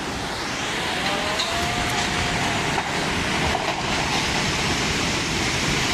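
Floodwater rushing through a city street: a loud, steady rushing noise, with a faint gliding call or voice near the start.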